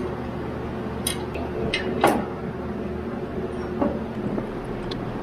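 A few metal clinks and knocks, the loudest about two seconds in, as a wrench and a turbocharger are handled against the engine, over a steady low hum.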